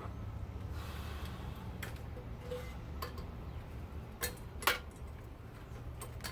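About five light metallic clicks and clinks from parts of a garment steamer being handled and pried during a teardown, the loudest a little past the middle, over a steady low hum.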